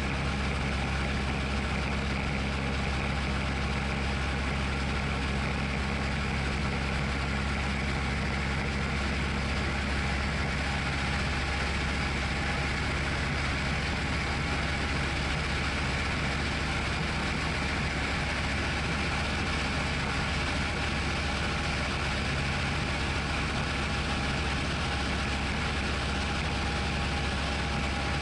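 Tecnam P2002 Sierra's Rotax 912 engine and propeller heard inside the cockpit in flight: a steady, unchanging drone.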